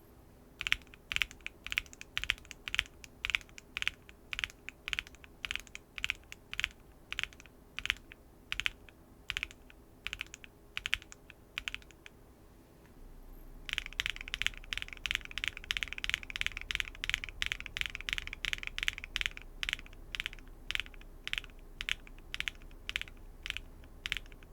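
Linear mechanical keyboard switches being pressed and released in a steady rhythm, making sharp clacks about two to three times a second. After a short pause about halfway through, a second run of keystrokes starts, denser and louder.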